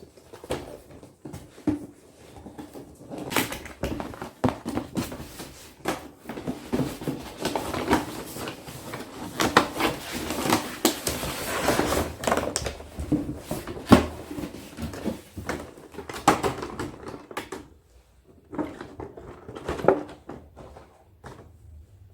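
Hands handling a small plastic RC truck and its packaging: irregular clicks, knocks and rustling, with one sharper knock about two-thirds of the way through.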